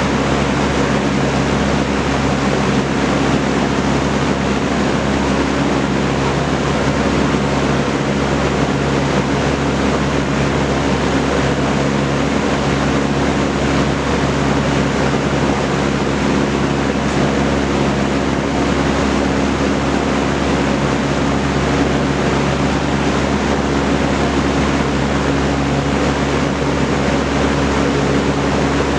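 Vintage Kenmore Roll-A-Matic 20-inch reversible box fan with a four-blade propeller running steadily: an even rush of moving air with a low motor hum underneath.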